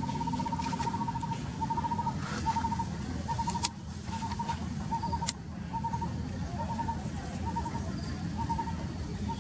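An unseen animal calling in the background, most likely a bird or insect: one unbroken trill at first, then short trilled notes repeated about every two-thirds of a second, over a low steady rumble.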